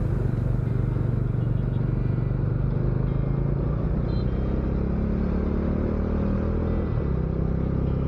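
Motorcycle engine running steadily while riding along a road, under a steady rush of road noise. The engine note climbs slowly through the middle and drops back about seven seconds in.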